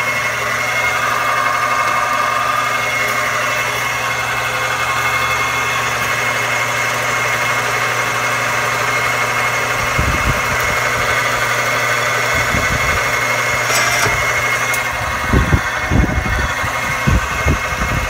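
Homemade treadmill-roller wire stripper driven by an old 110-volt electric fan motor, running steadily with a constant hum. Irregular low thumps and a few knocks come in the second half.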